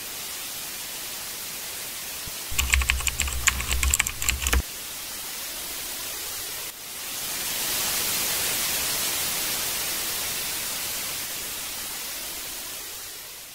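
TV static hiss throughout, with a burst of rapid computer keyboard typing over a low hum from about two and a half seconds in, lasting about two seconds. About seven seconds in the static jumps louder, then slowly fades out.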